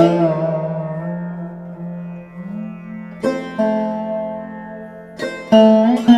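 Background instrumental music on a plucked string instrument like a sitar: struck notes that ring and fade, with fresh plucks a little after three seconds in and again after five.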